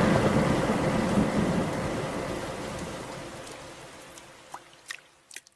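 Rain and rumbling thunder of a storm, fading away steadily, then a few single water drips near the end.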